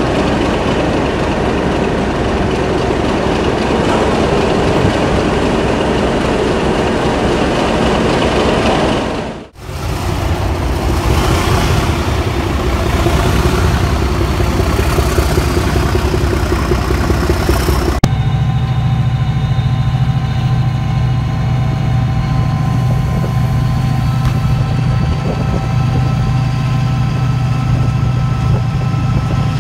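Class 37 diesel-electric locomotive with its English Electric V12 engine working hard as it pulls away from a station. About halfway through, the sound cuts abruptly to a Class 68 diesel-electric with its Caterpillar V16 engine pulling away, a steady low hum with a slowly rising whine.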